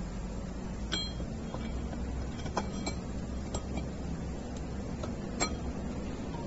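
Steel parts of a cycloid reducer clinking against each other about five times, at irregular intervals, as the second cycloid disc is fitted into the pin housing, over a steady low hum.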